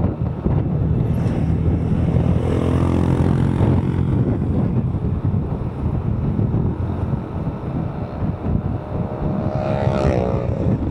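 Motorcycle engine running under way with road and wind noise, its note climbing in pitch twice, a couple of seconds in and again near the end, as it accelerates.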